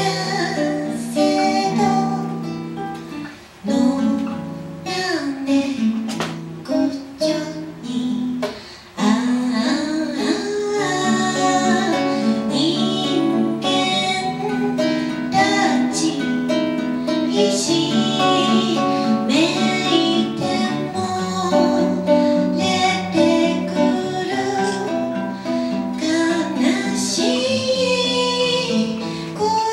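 A woman singing a song live into a microphone, accompanied by an acoustic guitar. There are a couple of short breaks between sung phrases early on.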